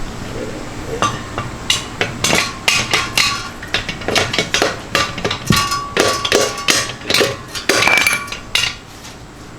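Repeated hammer blows on metal, about three a second with an uneven beat, many leaving a short metallic ring: knocking a stuck piston and rod out of a Ford 5.0 Coyote engine block's cylinder bore. The blows stop near the end.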